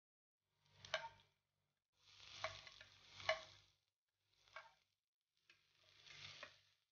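A metal spatula stirring garlic and onion that sizzle in oil in a stainless steel pan. The sound comes in several short bursts of sizzle and scraping, with sharp clicks of the spatula against the pan, and silence between them.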